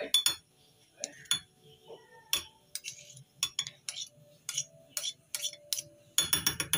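Two metal spoons clinking and scraping against each other and the rim of a ceramic bowl as chocolate batter is wiped off one spoon with the other; scattered light clinks, with a denser run of clatter about six seconds in.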